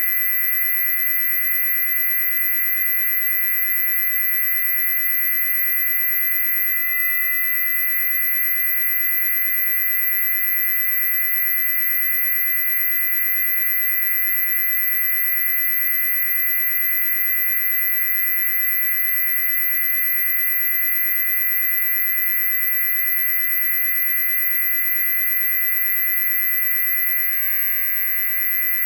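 Continuous electronic high-pitched noise: several steady pure tones layered at once, the loudest a very high whine over a band of shrill tones, holding unchanged throughout.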